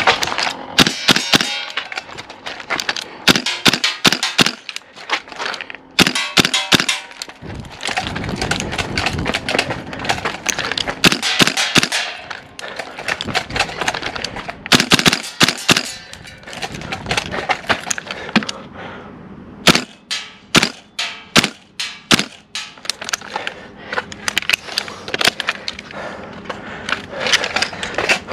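VFC BCM MCMR gas-blowback airsoft rifle firing single shots and short quick strings, each shot a sharp clack of the bolt cycling.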